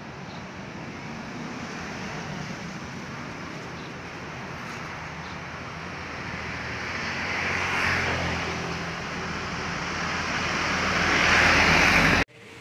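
Street traffic with vehicles passing close by. The sound swells as one passes about eight seconds in and again, louder, near the end, then cuts off suddenly.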